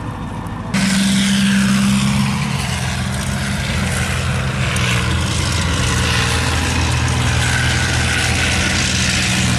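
A vehicle engine running steadily, its low hum under a loud rushing noise, cutting in abruptly under a second in.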